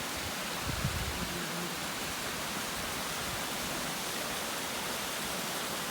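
Steady, even rushing hiss with a brief low rumble about a second in.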